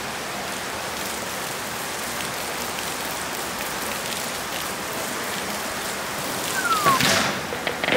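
Steady rush and patter of water: a stream poured from a bottle off a bridge, falling onto the rocks and creek below, over the creek's flow. Near the end a short whistle falls in pitch, then a brief louder rush.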